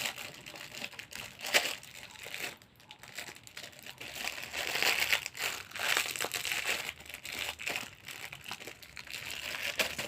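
Packaging crinkling and rustling in irregular bursts as a squishy stress ball is unwrapped, busiest in the middle.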